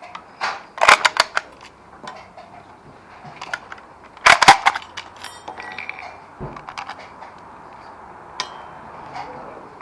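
Metallic clicks and clacks of Lee-Enfield No. 4 Mk 1* rifles being readied, bolts worked and magazines loaded, in two sharp clusters about a second in and just past four seconds, with fainter scattered clicks between.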